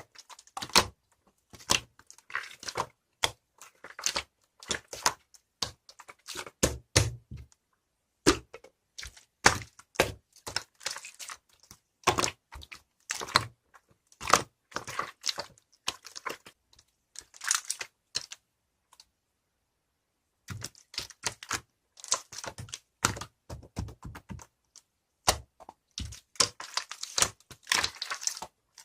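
Slime being worked by hand, giving off quick clusters of sharp clicks and pops, with a pause of about a second and a half about two-thirds of the way through.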